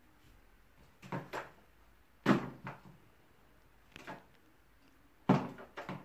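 Hard knocks and clacks of a vacuum cleaner's tube and parts being handled and set in place, about seven in uneven groups, the loudest a little past two seconds and a little past five.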